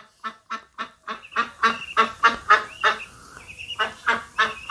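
Ducks quacking in a fast run of short calls, about three or four a second, with a few thin high peeps from ducklings among them.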